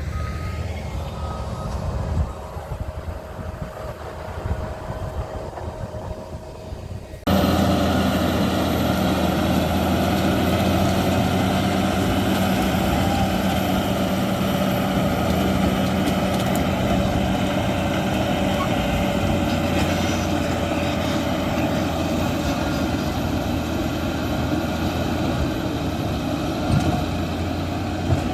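Caterpillar D8 crawler bulldozer's diesel engine running, with the rumble of its machinery. About seven seconds in the sound jumps abruptly louder and then holds steady.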